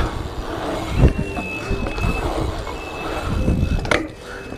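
BMX bike rolling over concrete skatepark ramps, tyres rumbling, with a heavy thump about a second in and a sharp knock near the end.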